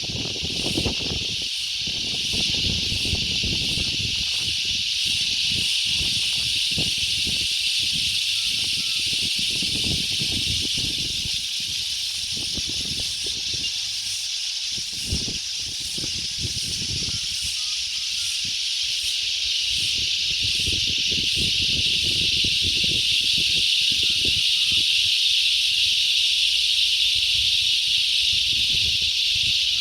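Wind buffeting the microphone in irregular gusts, over a steady high-pitched drone of insects.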